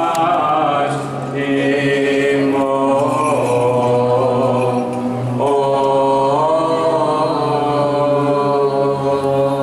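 Byzantine chant by men's voices: a melody sung in long, slow phrases over a low note held steadily underneath as a drone (ison). The melody breaks briefly about a second in and again a little past five seconds, then carries on.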